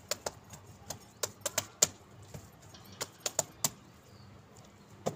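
Sharp, irregular clicks and taps, about fourteen in all, in uneven clusters, the loudest a little under two seconds in.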